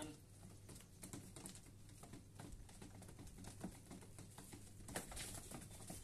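Faint scattered taps and rustles of hands working in a wooden pigeon nest box, with a sharper tap about five seconds in.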